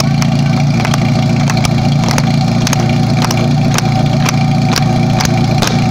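Portable fire-fighting pump engine idling steadily, with hand clapping close by that comes faster near the end.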